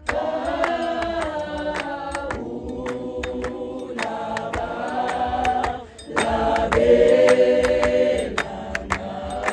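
Clap-and-tap gospel choir singing unaccompanied in harmony, with steady rhythmic hand claps keeping the beat. The singing pauses briefly about six seconds in before the next phrase.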